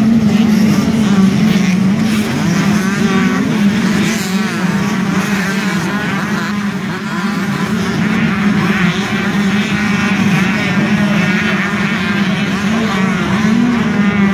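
A pack of motocross dirt bikes racing around the track, their engines buzzing and revving together in a steady, wavering chorus.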